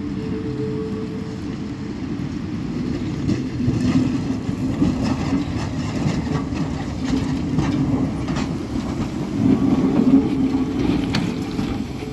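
Vintage Wagon K tram pulling away and rolling past close by: a steady low rumble from the wheels and running gear, with sharp clicks and knocks of the wheels on the rails. It grows louder about three seconds in and stays loud until near the end.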